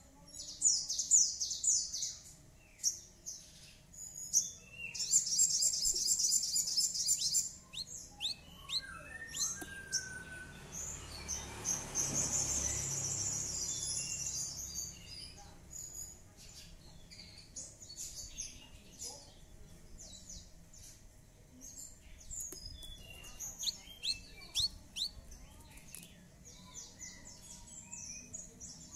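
Javan bush lark (branjangan) singing: quick high chirps and short trills, with a fast rattling trill about five seconds in and a longer warbling phrase around twelve seconds. A faint low rush of background noise rises and fades in the middle.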